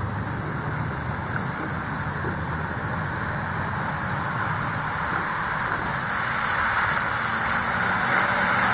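A vehicle approaching on a slushy, snow-covered road, the hiss of its tyres through the slush growing steadily louder.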